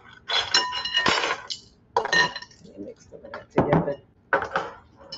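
Metal measuring spoons clinking and knocking against dishes, several separate sharp clinks, the first few with a short ringing tone.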